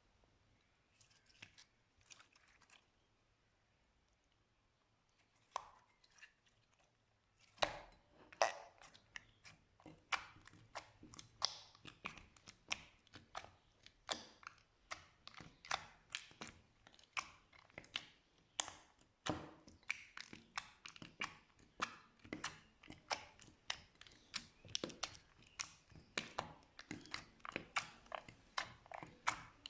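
Slime being squeezed and pressed, making short sticky crackling pops at about two a second. It starts faint, with a few soft clicks, and the popping sets in about seven seconds in.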